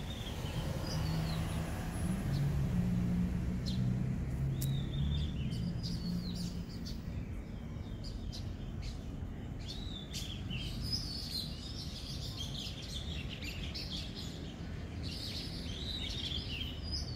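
Small birds chirping again and again over a steady low background noise, with a low hum that is loudest for the first several seconds and then fades.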